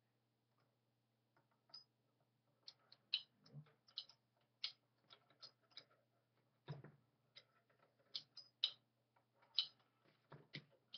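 Irregular light clicks and taps of small metal parts being handled and fitted inside a stripped-down Singer sewing machine as the shuttle fork is worked into place, with one heavier knock a little past halfway.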